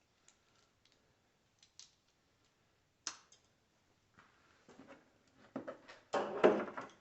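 Hand tools being handled: scattered light metallic clicks, a sharper click about three seconds in, then louder clattering and rattling near the end as tools are picked up.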